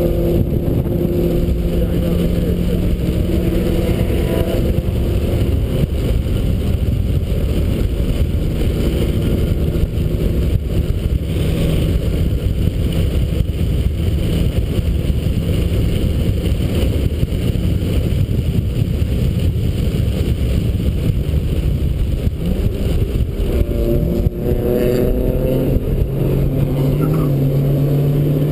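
A 1991 Mazda Miata's 1.6-litre four-cylinder engine running hard on track, heard from inside the car under a loud rushing noise. The engine note is mostly buried mid-stretch. Near the end it breaks briefly, then climbs in pitch again as the car accelerates.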